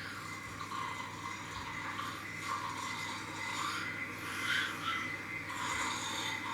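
A girl snoring in her sleep, a rasping snore repeating roughly once a second.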